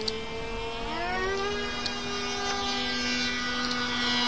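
Thunder Tiger two-stroke alcohol-fuelled (glow) model engine on a small RC airplane running at high revs in flight, its pitch climbing about a second in and starting to fall near the end. A steady lower hum runs underneath.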